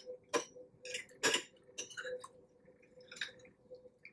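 Close-miked eating sounds at a meal of seafood and pasta: irregular sharp clicks and smacks, about seven in four seconds, the loudest a little over a second in.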